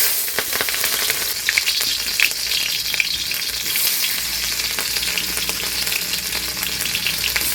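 Vegetables frying in hot oil in a pan: a steady sizzle with small clicks and scrapes of stirring.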